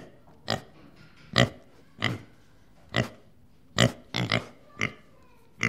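A group of young pigs grunting: about ten short, separate grunts, roughly one every half second to a second.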